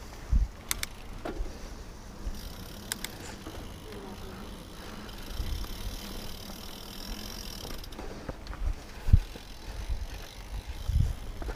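Mountain bike rolling over a rocky dirt singletrack: steady tyre and rattling bike noise, with several heavy low thumps as it hits bumps and a couple of sharp clicks near the start.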